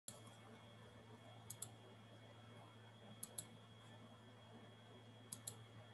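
Three quick double-clicks of a computer mouse, about two seconds apart, over a faint steady low hum.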